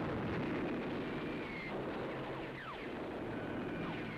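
Continuous low rumble of battle noise, with two falling whistles about two and a half seconds in.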